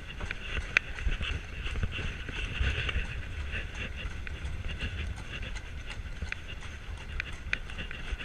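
A carriage horse's hooves clip-clopping on cobblestones, with uneven sharp strikes over the steady rumble and rattle of the carriage's wheels rolling on the cobbles.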